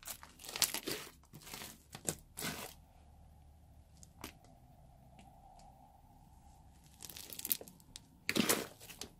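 Lilac slime studded with small foam beads being stretched, pulled apart and squeezed by hand: sticky crackling and tearing noises in short spells, with a quieter lull in the middle.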